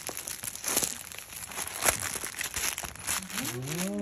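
Cellophane gift wrapping and plastic packaging crinkling and rustling as they are handled, with irregular crackles. Near the end, a person's drawn-out vocal exclamation rises and then falls in pitch.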